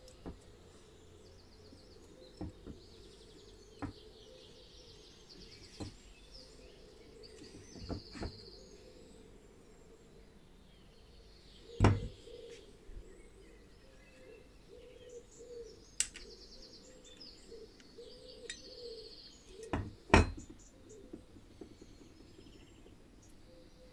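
Small birds chirping steadily in the background, with scattered clicks and knocks of electric-motor parts being handled on a bench. Two louder knocks come about halfway through and again about five-sixths through.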